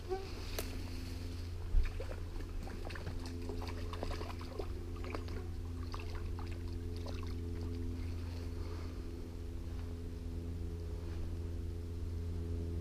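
Handling noises and scattered clicks as a small fish is taken from the stream by hand and held for unhooking, with one sharp thump about two seconds in, over a steady low hum.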